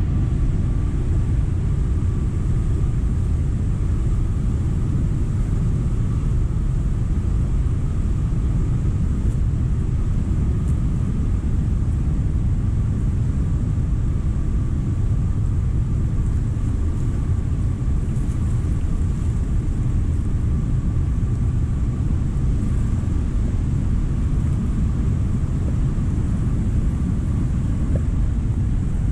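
Cumberland Falls in flood: high water pouring over the falls, heard as a loud, steady low rumble.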